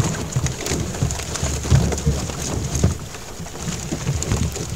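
Wet splashing and pattering of water in a small fishing boat, with scattered clicks and irregular dull thumps as the catch and net are handled.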